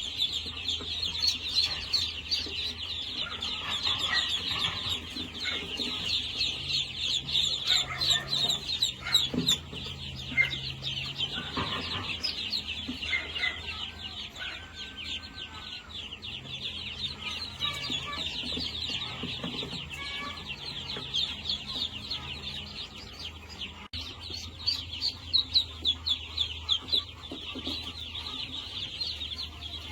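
A flock of chickens clucking and calling, over a dense, continuous high-pitched chirping.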